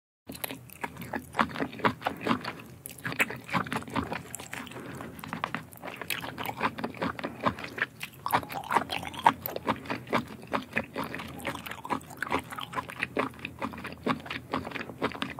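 Mouth sounds of a person chewing and biting octopus tentacles: a dense, uneven run of short sticky clicks and smacks that starts abruptly.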